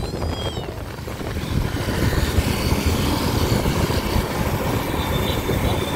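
Motorcycles running past on a road, with engine and traffic noise.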